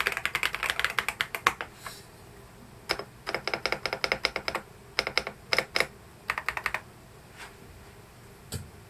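EPOMAKER DynaTab 75 mechanical keyboard being typed on fast for about a second and a half. After a pause come short quick runs of keystrokes, with the spacebar pressed repeatedly. One last stroke with a deeper thud comes near the end.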